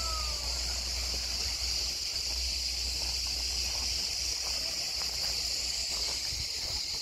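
Cicadas buzzing in a continuous high-pitched chorus, with a low rumble underneath.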